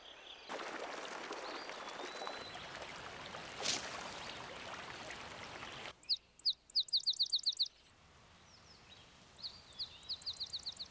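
A song sparrow singing: two runs of quick, high repeated notes, about six or seven a second, the second run fainter. They follow a steady outdoor hiss that fills the first half.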